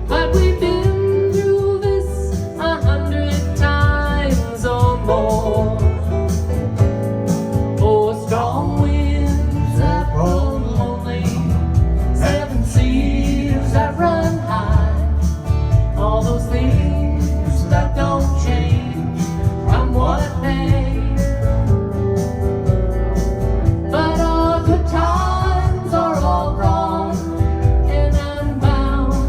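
Country-folk song with voices singing over a plucked guitar and a steady low bass line.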